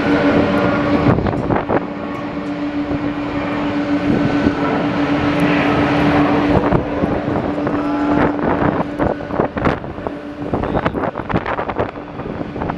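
Jet airliner engines running with a steady hum, broken by many short thumps of strong wind gusting on the microphone.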